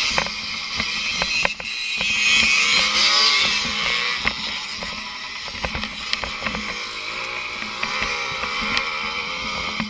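Small two-stroke motorcycle engine revving up and easing off as it is ridden across bumpy grass, heard from on the bike, with frequent short knocks and rattles.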